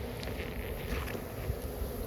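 Swarm of honeybees buzzing steadily around an opened colony, with wind rumbling on the microphone.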